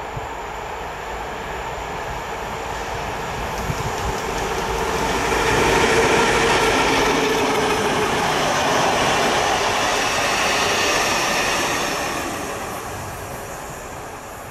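Work train passing: an M62 diesel locomotive's two-stroke V12 engine growing louder as it approaches and passes about six seconds in, then the rolling of its cars and a Plasser track tamping machine going by and fading away near the end.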